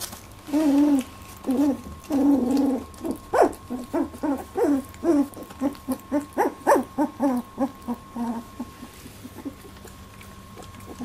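18-day-old Labradoodle puppies whimpering and squealing: a quick string of short calls, some sliding in pitch, that die away about eight seconds in.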